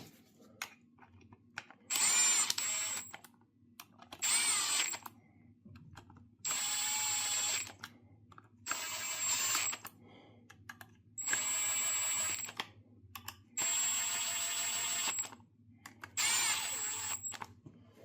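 Power drill running in the engine's front cover bolts, seven short runs of about a second each with a steady high whine, paused between bolts.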